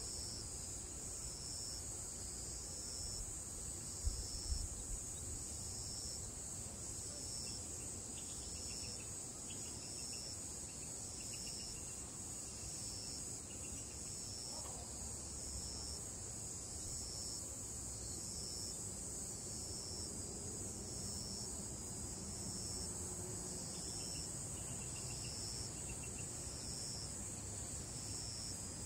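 Cicadas singing in the trees: a steady high shrill chorus with a second layer that pulses on and off at a steady rhythm. There are two brief low thumps about four seconds in.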